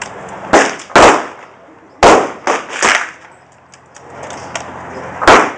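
Gunshots at a shooting range: about six sharp shots in the first three seconds, unevenly spaced and some louder than others, then one more loud shot near the end after a pause of more than two seconds.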